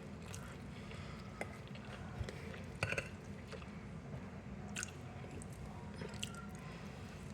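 A person chewing a mouthful of oxtail, with faint wet mouth clicks and smacks, a couple of sharper clicks about three seconds in and again near five seconds.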